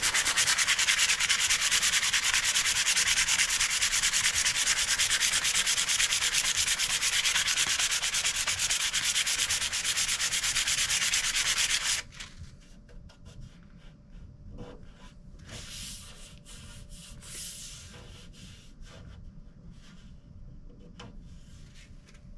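Sandpaper rubbed by hand in rapid back-and-forth strokes on a fiberglass hatch, scrubbing off sticky leftover caulking around drilled-out hinge holes. The strokes stop suddenly about halfway through, and softer, scattered rubbing follows.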